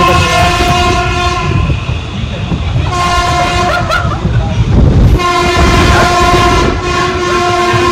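Train horn sounding in long blasts at one steady pitch: one ends about one and a half seconds in, another sounds around three to four seconds, and a third starts about five seconds in. Underneath is the low, continuous rumble of a moving train.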